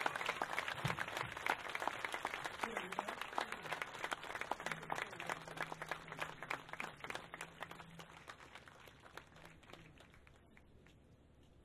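Audience applauding, thinning out and dying away about ten seconds in.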